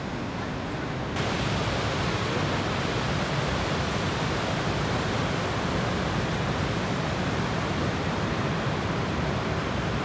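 Steady rushing of Niagara's Horseshoe Falls, an even wall of falling-water noise with no breaks; about a second in it becomes louder and brighter.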